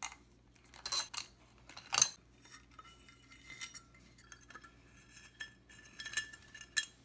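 Stamped steel end cover being worked off a vintage tube-amplifier transformer by hand. Sharp metal clicks and clinks come about a second in and again about two seconds in, then light scraping, then two more clinks near the end.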